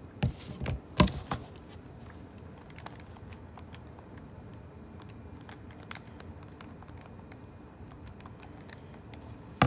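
Calculator buttons being pressed as a sum is keyed in: a few sharp clicks in the first second and a half, faint scattered taps after that, and one louder click near the end.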